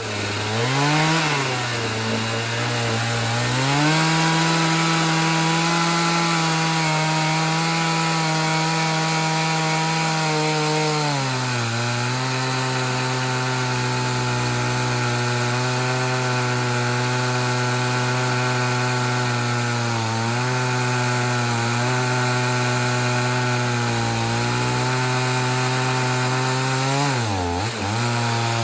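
Two-stroke chainsaw on an Alaskan chainsaw mill running at high revs while ripping a long cut through a pine log. The engine pitch holds steady, steps down a little under load about eleven seconds in, and sags briefly a few times, most deeply near the end.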